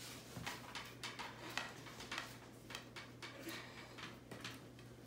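Faint, irregular ticks and scratchy rustles of twisted rush cord being pulled down and worked into a rocking chair's woven rush seat by hand while the finishing knot is tied.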